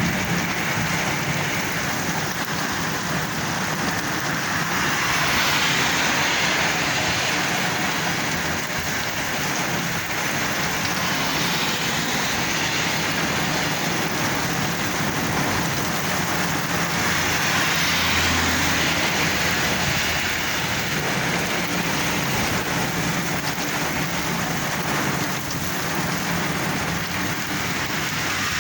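Heavy rain pouring steadily, with slow swells in its level.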